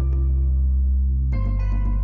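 Slow background music: held low chords with bell-like notes struck over them, the chord changing a little past halfway.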